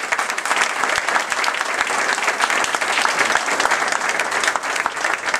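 Audience applauding, many people clapping at once at an even level.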